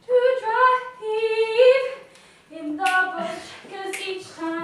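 A woman's voice singing unaccompanied, holding long notes in two short phrases with a pause about two seconds in.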